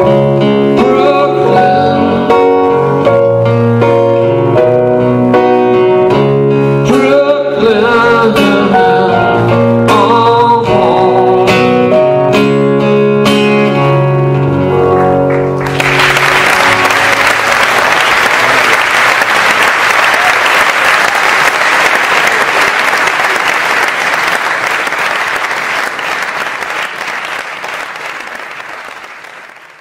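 Acoustic guitar strummed with piano, and a man singing, playing the last bars of a song live; about halfway through the music ends and an audience applauds, the applause fading away toward the end.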